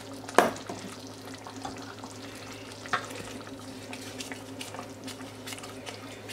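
Wooden spatula stirring a simmering sauce in a stainless steel saucepan, with a sharp knock about half a second in and a lighter one near three seconds.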